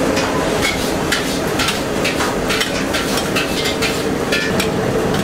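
Busy kitchen clatter: frequent sharp metal clinks and taps of utensils over a steady rushing noise.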